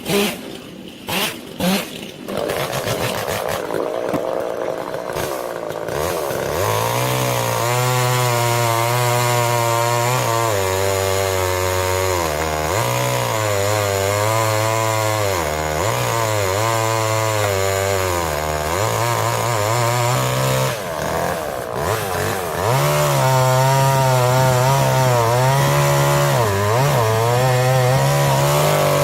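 Two-stroke chainsaw cutting into a tree, its engine note sagging and recovering again and again as the chain bites into the wood, with a short drop about two-thirds through before it revs higher. A few sharp knocks in the first two seconds.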